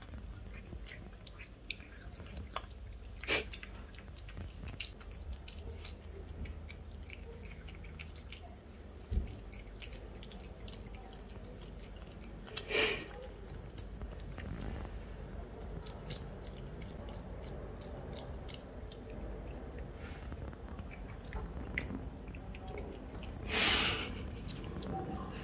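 Lynx point Siamese cat chewing and licking crumbled cooked egg yolk, a steady run of small wet mouth clicks and smacks as the sticky yolk sets him licking. Three louder bursts stand out: one a few seconds in, one about halfway, and a longer one near the end.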